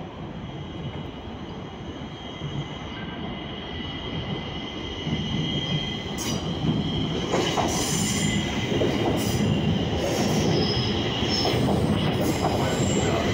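Stockholm metro C20 train pulling into the station, its rumble on the rails growing steadily louder as it approaches, with steady high-pitched tones above it. From about six seconds in, sharp clicks join as the cars run along the platform.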